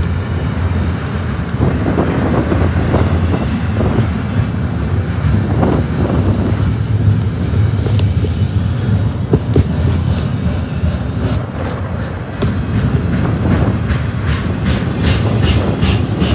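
BNSF double-stack intermodal freight train passing close by: a steady, loud rumble of well-car wheels on the rails with scattered clanks. Near the end comes a quick run of sharp, evenly spaced clicks.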